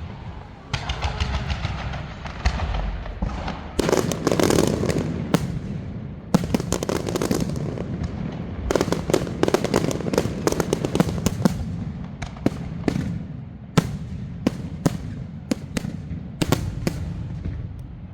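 Fireworks barrage going off: many sharp bangs and crackles in quick, irregular succession over a low rumble. It is densest in the middle and thins to scattered single bangs near the end.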